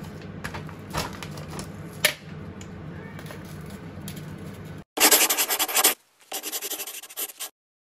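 Knife sawing and scraping at a chicken seekh kebab on a plate, in two loud rasping bouts of about a second each near the end. Before them there is a low steady hum with a single click.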